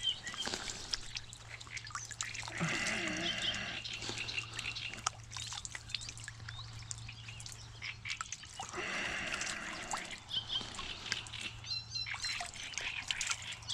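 Water dripping and trickling, with many small clicks and splashes, and two longer bursts of animal calling, about three seconds in and again about nine seconds in.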